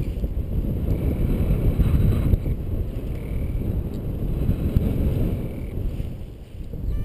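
Wind buffeting the microphone of a camera mounted on a paraglider in flight, a low, gusty rumble that swells and eases, dipping briefly near the end.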